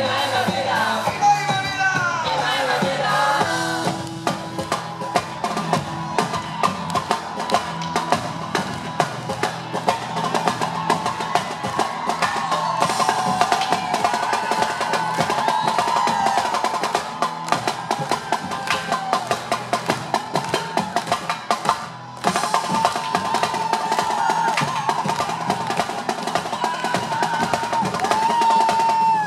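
Live band music driven by rapid, rolling strokes on a marching snare drum. The music drops out briefly about 22 seconds in.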